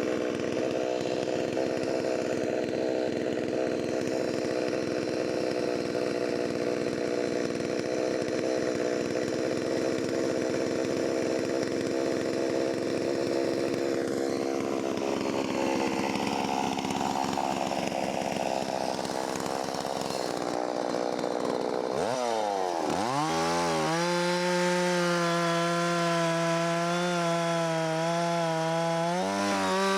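Holzfforma 660 clone two-stroke chainsaw cutting through a big log under load, its engine pulled down to a lower, rough pitch. About 22 seconds in, the pitch dips, then climbs to a high steady rev as the chain comes free of the cut.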